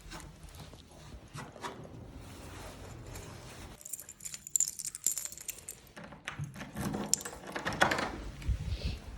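Small metal pieces jingling, loudest about four and a half to five seconds in, among scattered clicks, knocks and handling noise.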